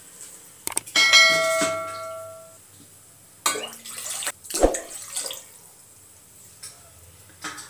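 Water poured into an aluminium kadhai, splashing and running. About a second in, a single bell-like ding rings out and fades over a second and a half; it is the loudest sound. A sharp click comes near the middle.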